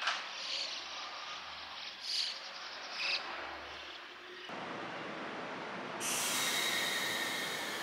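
Keio 1000 series electric train running along the track: a steady rushing sets in suddenly about four and a half seconds in and jumps louder about six seconds in, with a high whine over it. Before the train, short high chirps over quiet outdoor background.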